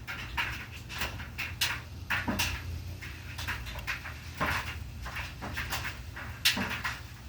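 Dog panting in short, irregular breaths, with a few light knocks.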